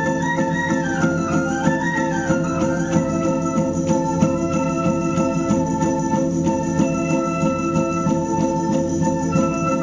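Music from a fife-and-drum corps (Spielmannszug): a band of flutes plays a melody over many held notes.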